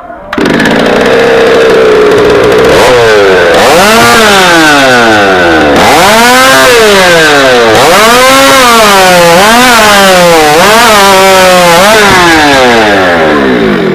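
Two-stroke competition chainsaw in the stock-appearance class, hitting full throttle suddenly and running flat out. Its pitch swings down and back up about seven times, as it does when the saw bogs in a log cut and recovers. It drops away near the end.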